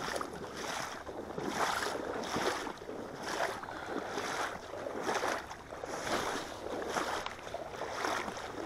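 Water swishing and sloshing around chest waders as someone wades through shallow lake water, one swish with each stride, about one a second.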